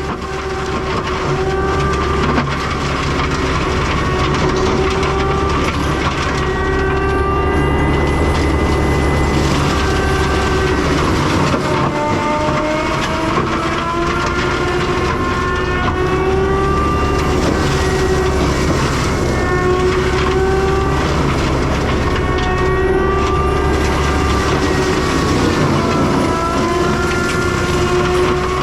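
CAT 299 compact track loader running a forestry mulcher through brush: a steady diesel drone under a whine that wavers up and down in pitch as the machine works.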